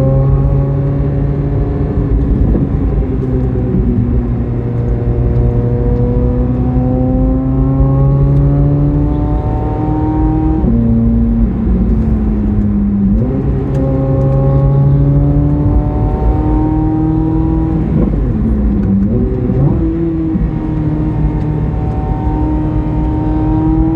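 Chevrolet Corvette C8 Z06's flat-plane-crank V8 pulling along a winding road: the engine note climbs slowly, then falls away sharply a few times as the driver shifts or eases off, then climbs again.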